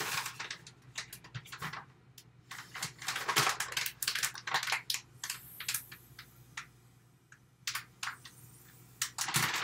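Crinkling and rustling of a resealable kraft-paper spice pouch being handled and closed: an irregular run of small crackles and clicks, thinning out for a couple of seconds past the middle before picking up again near the end.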